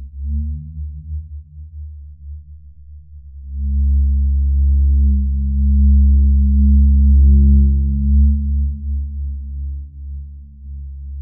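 Deep, low droning rumble, a horror-film sound-effect drone of the kind that signals a ghostly presence during a night scene. It swells up about three and a half seconds in and eases off near the end.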